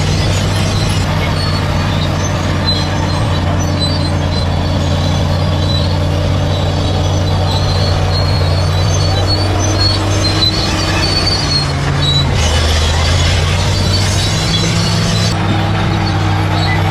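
Bulldozer diesel engine running under load with the steel tracks squealing and clanking, the engine note shifting about twelve seconds in and again near the end.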